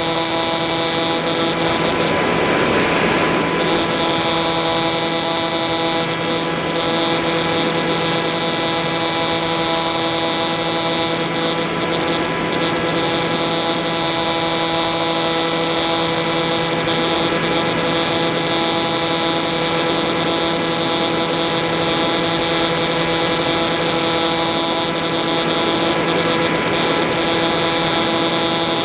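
Electric motor and pusher propeller of an Easy Star RC glider running steadily, recorded by the plane's onboard camera: a steady multi-tone whine over a rush of airflow noise. A brief swell of wind noise comes about two to three seconds in.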